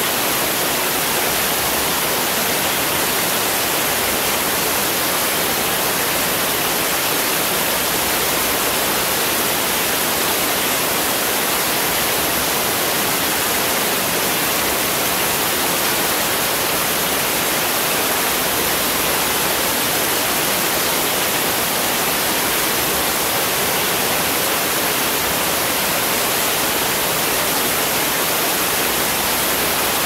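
Heavy rain pouring steadily onto paving and leaves, a dense, even hiss with no thunder.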